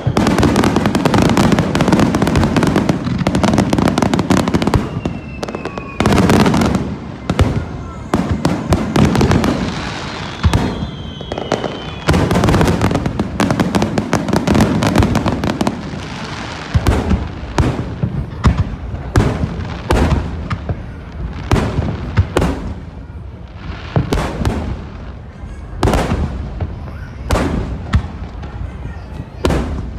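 Aerial fireworks display: shells bursting in quick succession, a dense barrage of booms and crackling for about the first half, then separate bursts a second or two apart. A few short whistling tones sound among the bursts in the first half.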